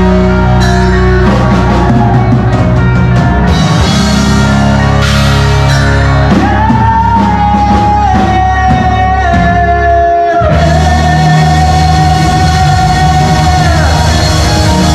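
Live rock band playing loud, with electric guitars and a drum kit. A long held high note comes in about six seconds in, slides slightly lower, and ends near the close.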